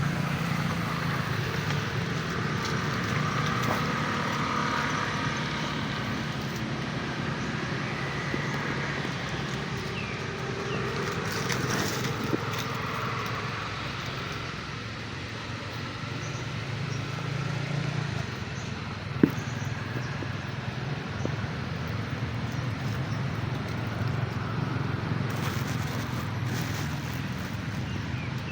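Steady outdoor background noise with a low hum, and one sharp click about nineteen seconds in.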